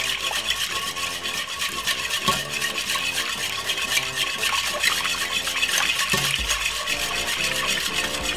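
Wire whisk beating an egg into a warm liquid mixture of coconut milk and sugar in an aluminium saucepan. The wires swish and click against the pan in rapid, steady strokes.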